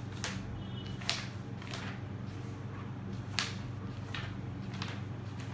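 Paper pages of a thick book being flipped by hand, several quick crisp page swishes, over a steady low hum.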